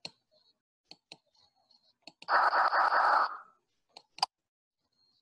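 Several short, sharp computer-mouse clicks as the slides are advanced, with a loud breathy rush of noise lasting about a second midway.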